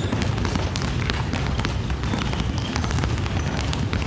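Many basketballs dribbled at once on a wooden gym floor: a dense, uneven patter of overlapping bounces with a low rumble from the hall's echo.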